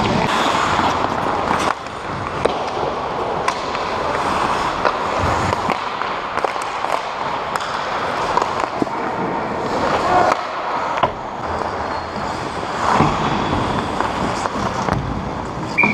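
Ice hockey game sound: skate blades scraping and carving on the ice, with scattered sharp knocks of sticks and puck against the ice and net.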